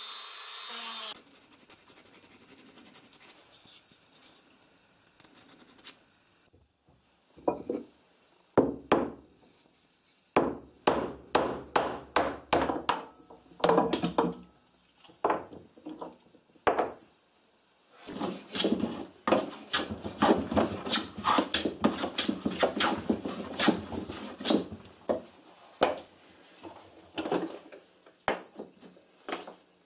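A rotary tool grinding wood with a small stone bit cuts off about a second in. Further on come sharp knocks as a blade is driven into a short branch to split it. Later there is a fast run of scraping strokes as the split branch piece is worked.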